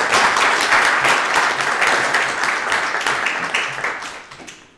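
Audience applauding, the clapping fading out in the last second.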